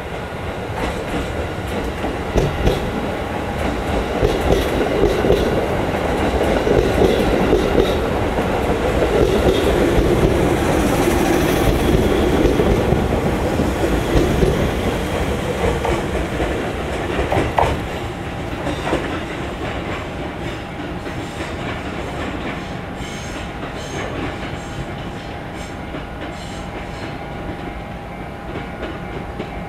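JR 211 series electric commuter train pulling in alongside the platform: wheels clicking over the rail joints, loudest midway as the cars pass close by, then easing as it slows. A steady high whine comes in during the later part.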